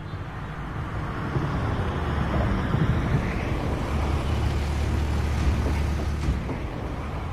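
Classic American car's engine idling with a low, steady rumble that swells in the middle; the deepest part of the rumble drops away about six seconds in.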